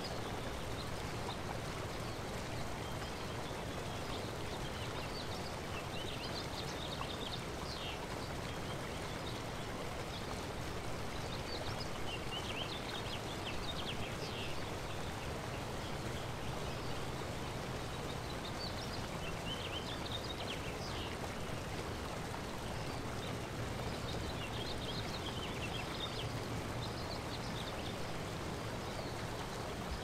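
Waterfall rushing steadily, with birds chirping in short clusters of high notes about four times.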